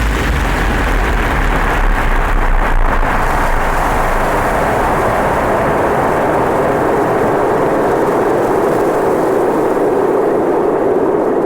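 Cinematic designed sound effect: a loud, steady roaring rumble. Its deep bass fades out about halfway through while the roar narrows and settles lower in pitch.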